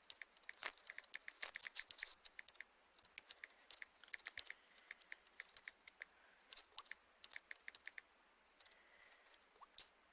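Faint, irregular clicking, several sharp clicks a second, easing off for a moment near the end.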